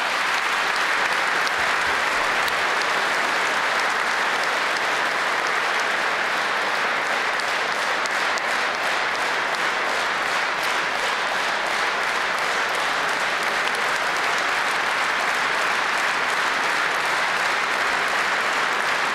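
A large seated audience applauding in a steady, unbroken ovation.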